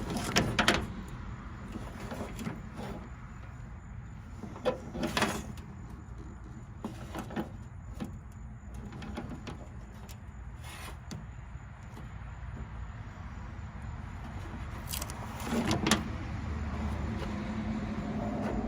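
Scattered knocks and clatter, the loudest about half a second in, around five seconds in and around sixteen seconds in, over a steady low hum.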